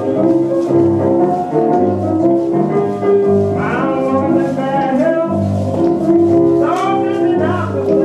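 A blues song plays over a steady, pulsing bass line with sustained piano-like chords. A melody with bending, sliding notes comes in about three and a half seconds in and again near the end.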